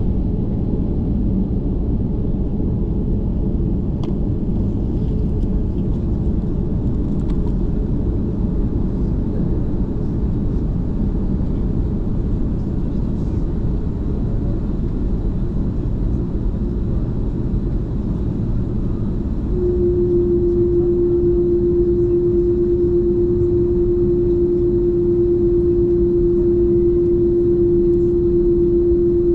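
Jet airliner cabin noise while taxiing, heard at a window seat over the wing: a steady low rumble of the engines and rolling. About two-thirds of the way through a steady hum joins in and the noise grows a little louder.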